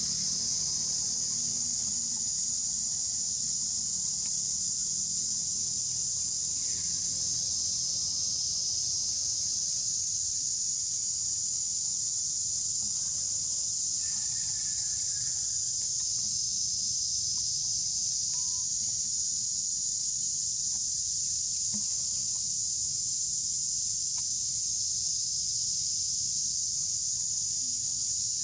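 Steady, high-pitched chorus of insects droning without a break, with a few faint short calls over it.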